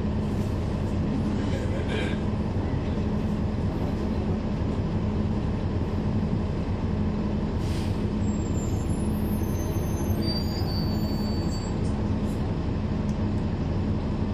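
Cabin sound aboard a NABI 40-foot transit bus: its Cummins ISL9 straight-six diesel running with a steady low drone and no transmission whine. A short hiss comes about eight seconds in, followed by a few faint high squeals.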